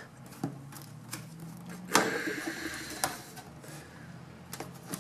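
Plastic clicks and scraping as a pry tool works the plastic screen bezel of an Asus Q551L laptop loose from the lid's metal back cover, its clips letting go. A sharper click comes about two seconds in, followed by about a second of scraping, with another click about a second later.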